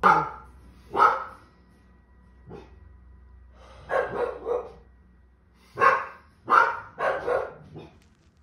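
A dog barking repeatedly: short single barks at first, then quick runs of two or three barks with pauses between them.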